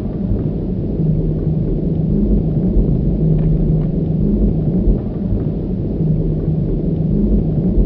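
Sci-fi atmosphere processor sound effect: a deep, steady mechanical rumble with a low humming strum that pulses in and out about every two seconds. The high end is filtered off to soften it.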